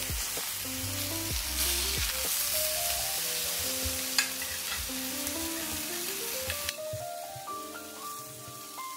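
Pork chops sizzling in a very hot cast iron skillet after searing, with one sharp click about four seconds in. The sizzle stops abruptly near the end, leaving light background music.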